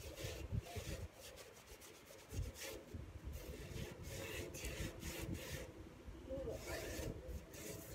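A wheelbarrow being scrubbed clean by hand: a series of uneven, faint rubbing strokes against the barrow's tray.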